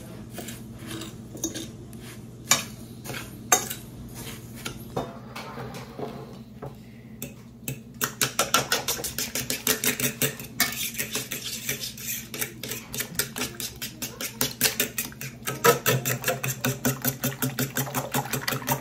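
A utensil clinking against a mixing bowl. At first come a few separate taps and clatters. About eight seconds in, brisk steady stirring starts, at about six strokes a second, as ingredients for breading chicken are mixed.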